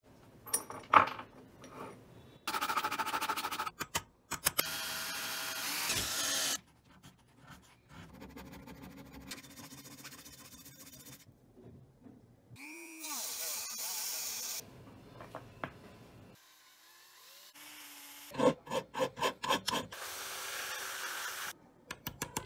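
Hand and power tools working brass and steel in a string of short cuts: clinks and taps, stretches of rasping file or saw strokes, a power tool running briefly, and a run of quick strokes about four a second near the end.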